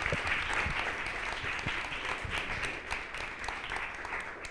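Audience applauding: a roomful of people clapping steadily, thinning out near the end.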